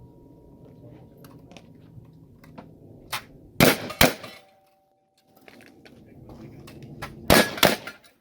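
Gunshots at steel targets: two pairs of loud shots about three and a half seconds apart, each pair led by a lighter crack. Hit steel plates clang and then ring on with a steady tone.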